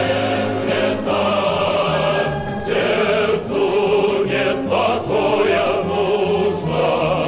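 Music: a song sung by a choir over instrumental accompaniment with a steady bass line.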